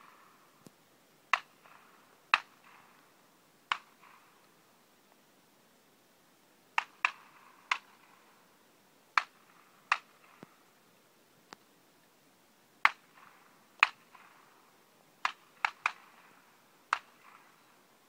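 Shotgun shots from other stands on a clay shooting ground: sharp cracks with short echoes at irregular intervals, roughly one every second or so, several in quick pairs.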